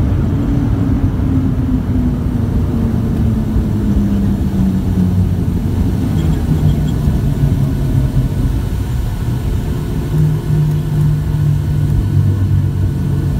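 Boeing 737-700's CFM56-7B jet engines winding down, heard from inside the cabin: their hum falls in pitch over the first six seconds or so, then holds steady at idle over a heavy rumble as the airliner rolls out after landing.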